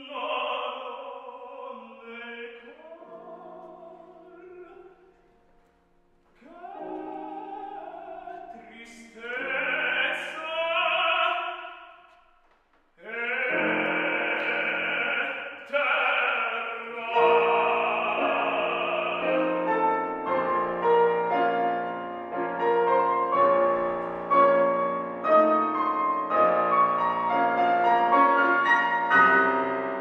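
Operatic singing: a man's voice in phrases broken by short pauses, then from about 13 s a woman's voice held high and loud. From about 17 s a piano accompaniment with many quick notes joins in.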